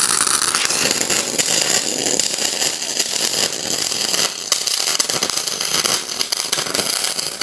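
Loud steady mechanical noise with scattered clicks and knocks while a six-axis industrial robot runs its freshly taught program. It starts abruptly just before and does not let up.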